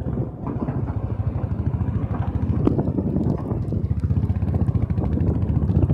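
Royal Enfield Bullet 500's single-cylinder engine running at low speed as the motorcycle rides over a rough gravel road, a rapid steady beat with scattered clicks and rattles.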